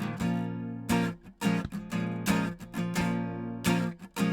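Acoustic guitar strumming chords in an instrumental break of a song.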